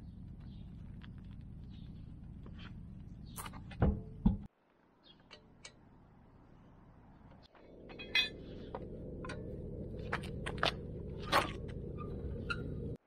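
Scattered metallic clinks and knocks from tools during wheel work on a car, over a steady low background rumble. The rumble drops out suddenly about four and a half seconds in and returns a few seconds later.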